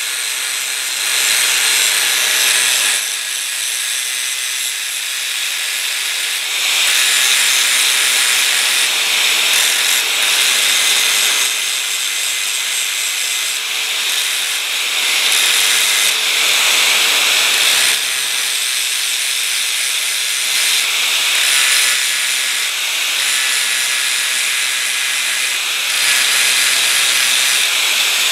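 Angle grinder running steadily, its disc grinding the edge of a metal bar sawn from a machine vise. Under the motor's steady whine, the grinding hiss swells and eases every few seconds as the disc is pressed on and eased off.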